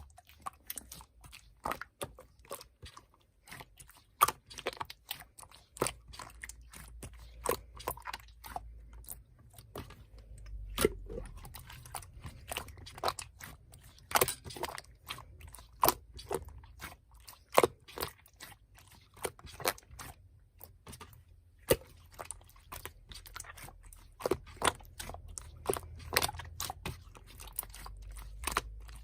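Slime being squished and worked by hand, giving irregular sharp clicks and pops, several a second.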